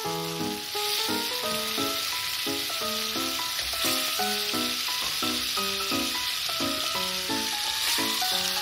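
Onion-tomato masala sizzling in hot oil in a kadhai as boiled chana dal is ladled in and mixed, a steady hiss. Background music with a repeating melody plays over it.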